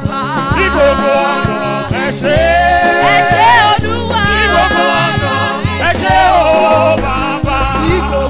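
Gospel praise song: a woman lead singer sings with backing vocalists over band music with a steady bass line and drum beat.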